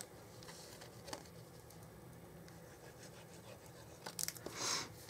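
Faint handling of a piece of cardstock, with a few small taps, then a short rustle of paper sliding against paper about four seconds in.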